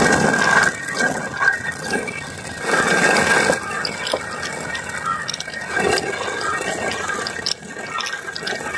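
Hand-turned stone quern (chakki) grinding whole urad beans into split dal: a continuous gritty grinding of stone on stone and grain, rising and falling in level.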